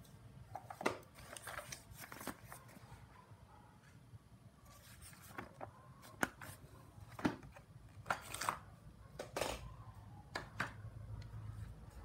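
Paper rustling as a printed sheet and an instruction manual are handled and the pages flipped, with scattered sharp clicks and knocks from items being handled in a plastic tool case.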